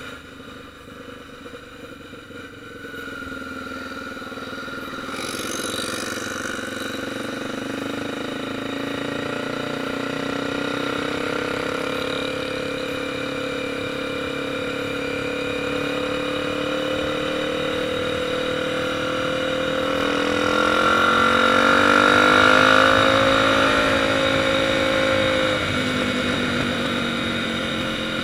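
Motorcycle engine running while riding, quieter for the first few seconds and then steadier. About twenty seconds in it climbs in pitch and loudness, then drops suddenly a few seconds later.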